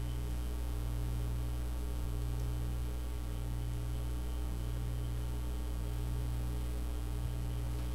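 Steady low electrical hum, mains hum picked up in the recording chain.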